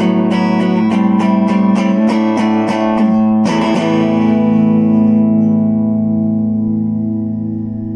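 Cort CR50 electric guitar played through a Cort MX15R amp: a run of single picked notes, then a chord struck about three and a half seconds in that rings on and slowly fades.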